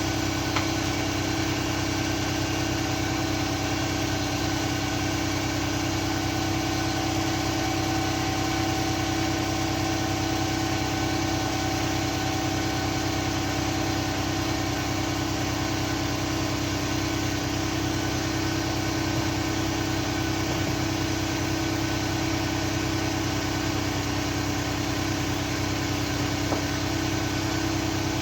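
Steady mechanical drone, like an engine or motor running at a constant speed, with an unchanging hum throughout.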